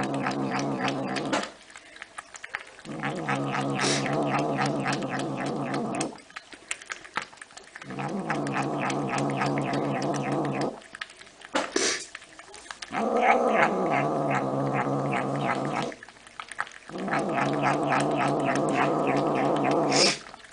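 A domestic cat growling while it eats: about five long, low, drawn-out growls of roughly three seconds each, with short pauses between them.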